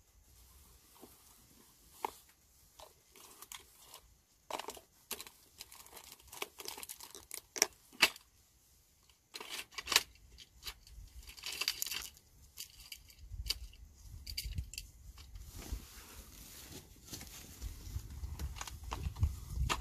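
Fishing gear being packed away by hand: scattered sharp clicks and knocks with rustling, and heavier close handling noise building toward the end.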